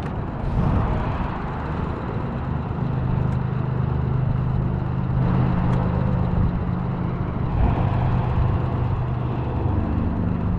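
Minn Kota 30-pound-thrust electric trolling motor running in its lowest speed, a steady low hum under a constant rushing noise, pushing the boat slowly while trolling.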